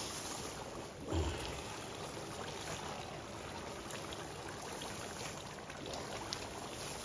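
Hot oil sizzling steadily in a large wok of chili, fish and shrimp sauce, with a single dull thump about a second in.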